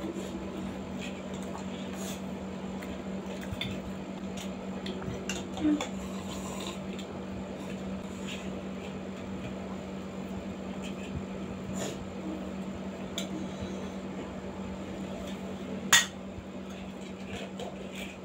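Metal forks clinking and scraping against stainless steel plates and bowls while eating, with one sharper clink about three-quarters of the way through. A steady low hum runs underneath.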